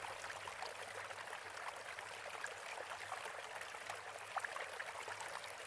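Water running and trickling in a steady light rush, with small drips and splashes scattered through it.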